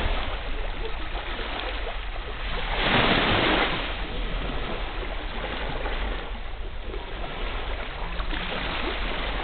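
Small waves washing onto a sandy beach in a steady hiss, with one louder wave breaking about three seconds in.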